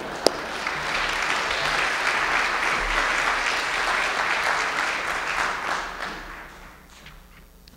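Audience applauding, dying away about six to seven seconds in.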